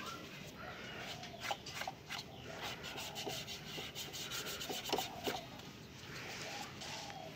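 Hand rubbing and tapping on a plastic modem case: scattered clicks and scrapes, the loudest about five seconds in.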